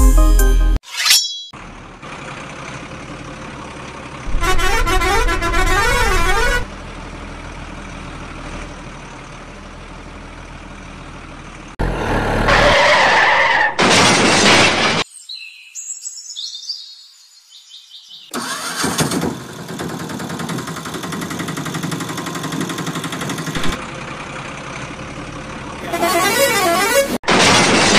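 A string of edited vehicle sound effects. A horn honks in two loud patterned stretches, one a few seconds in and one near the end. Between them are steadier stretches of vehicle noise and a short silent gap.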